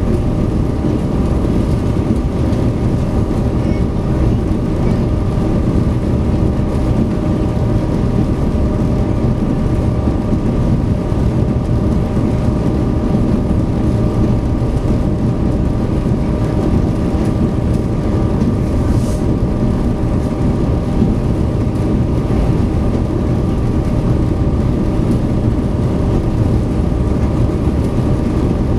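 Steady drone of a SeaBus passenger ferry's engines heard aboard while under way, a deep rumble with a constant layered hum above it.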